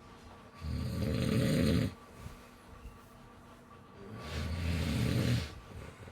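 Snoring: two long snores, each lasting just over a second, the first about half a second in and the second about three and a half seconds later.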